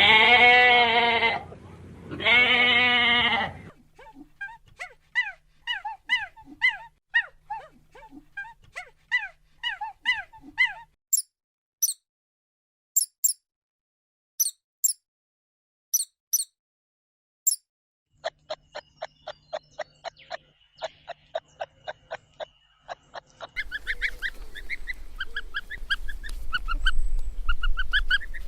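A string of different animal calls. First come two long bleats, then a run of quick chirps, then short, very high-pitched squeaks with gaps between them. A rapid trill of clicks follows, and near the end there are chirps over a steady noise.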